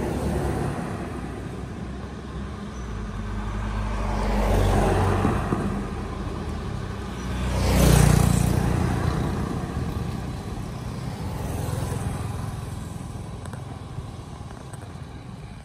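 Road traffic going by: three vehicle pass-bys that each swell and fade, the loudest about eight seconds in.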